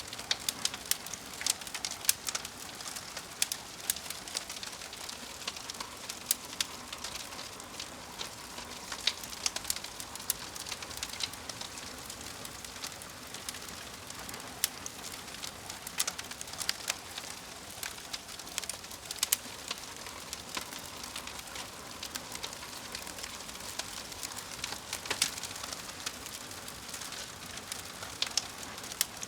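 Wood fire crackling: frequent sharp pops and snaps at irregular intervals over a steady soft hiss.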